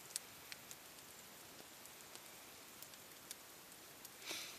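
Faint campfire crackling: a few sharp, scattered pops over a steady low hiss, with a short rustle near the end.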